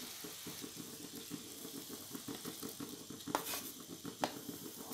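Thick, sticky sugar syrup bubbling steadily in a nonstick kadai, a soft crackle under a faint hiss. Two sharp clicks come near the end as cashew powder is tipped in from a plate.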